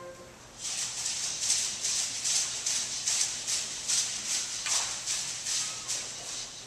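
A shaker (maraca-like hand percussion) played alone in a steady rhythm of short, hissy strokes, three to four a second, while the clarinets rest.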